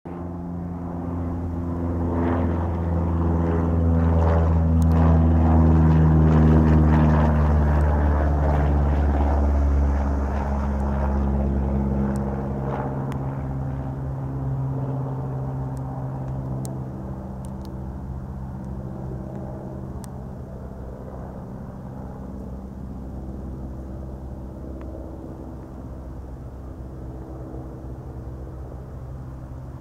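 Cessna 152's four-cylinder Lycoming piston engine and propeller droning overhead as the plane climbs out after takeoff: it grows louder over the first few seconds, drops in pitch about ten seconds in as it passes, then fades to a steadier, fainter drone.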